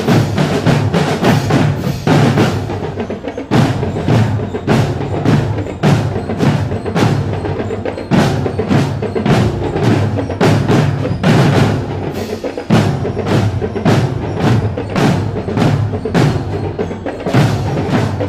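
Marching drum corps playing a drum cadence on marching snare and bass drums: a steady, fast run of sharp strokes over deep thumps.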